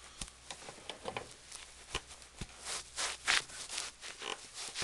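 Leather Sperry Top-Sider boat shoes scuffing and rubbing in short, irregular strokes as feet flex and work them, with a few sharp taps.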